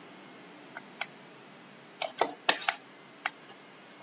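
Computer mouse clicking: about seven short sharp clicks, some in quick pairs like double-clicks, over a faint steady hiss.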